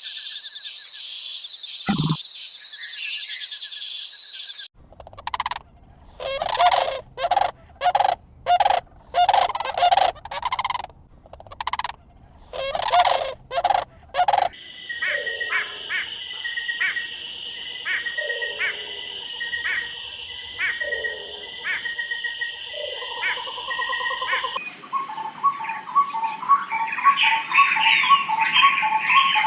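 Several different birds calling in turn, in clips that cut abruptly from one to the next. First a chirping trill, then a run of loud harsh calls about two a second, then a steady high ringing with short regular notes, and near the end fast pulsed chirping.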